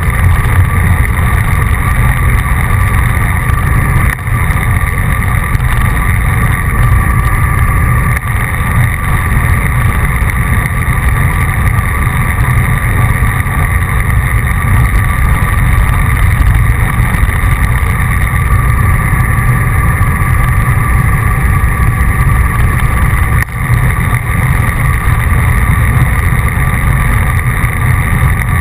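Wind rushing over the microphone of a camera riding along with road cyclists at speed: a loud, steady low rumble, with a faint steady whine above it.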